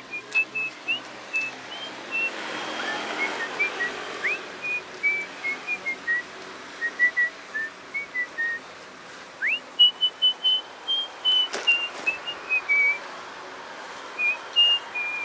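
A person whistling a tune: a string of short, clear notes stepping up and down, with a few quick upward slides between phrases.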